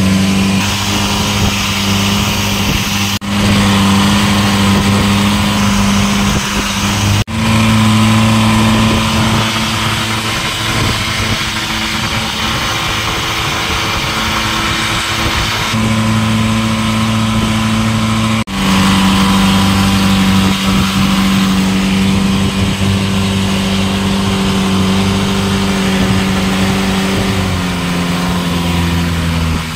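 Longtail boat's engine running at speed with a loud, steady drone, over a rushing hiss of wind and water. The engine note steps up or down a few times and drops out briefly three times.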